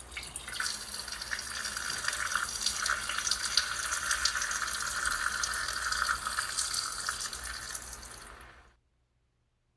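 A steady stream of liquid splashing, a peeing sound, running for about eight and a half seconds and cutting off abruptly.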